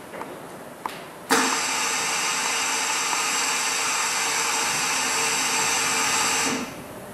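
A small electric motor-driven machine runs steadily for about five seconds, starting suddenly about a second in and cutting off near the end, after a couple of small clicks.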